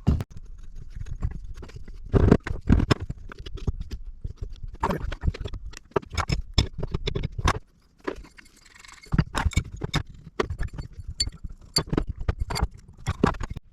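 Irregular hammer taps and metal knocks and clanks from working parts loose on an old gear reducer, with handling noise between the blows.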